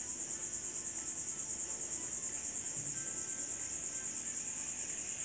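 A high-pitched insect trill that runs on steadily, pulsing rapidly about eight times a second.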